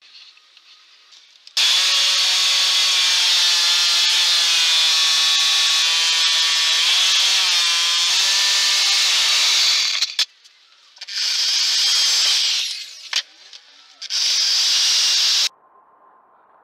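Handheld electric power tool working into a wooden board: one long run of about eight seconds with a wavering motor whine under load, then two shorter bursts.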